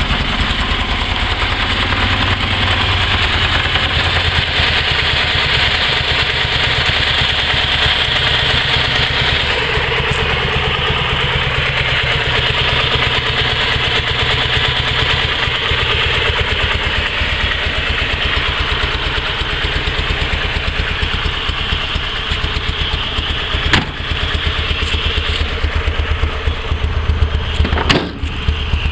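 Panhard 24 CT's air-cooled flat-twin engine idling steadily, with one sharp click a little over three quarters of the way through.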